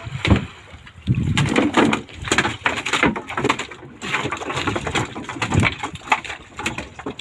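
A freshly landed large fish thrashing on the floor of a wooden boat: rapid runs of thumps and slaps against the hull, coming in several bouts.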